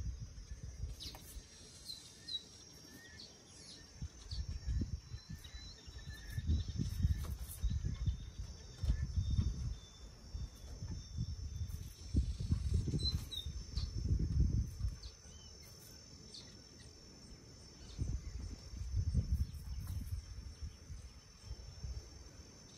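Outdoor ambience: a steady high insect drone with scattered bird chirps, broken several times by low rumbles that swell and fade.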